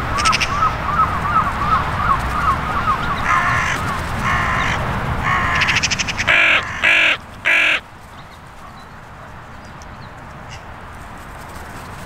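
Carrion crows cawing: a series of about six harsh caws, the last three, between about six and eight seconds in, the loudest. Before them, a quick run of short repeated notes about three or four a second.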